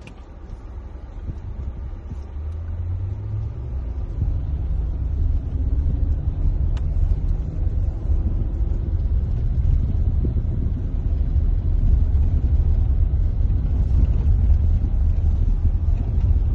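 Inside a moving car on a rough gravel road: a low rumble of tyres and engine that grows louder over the first several seconds, with a faint engine hum rising in pitch as the car speeds up.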